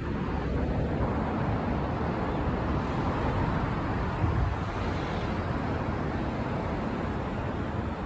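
Road traffic going by: a steady rush of vehicle noise that swells slightly in the middle.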